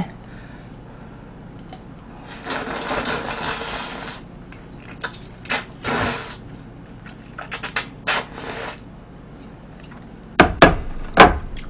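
A person slurping glass noodles in spicy tteokbokki sauce: three drawn-out slurps with a few short sucks between them, then several sharp knocks of dishware near the end.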